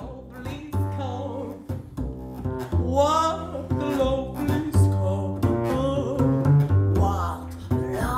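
Double bass playing a tune of sustained low notes, one after another.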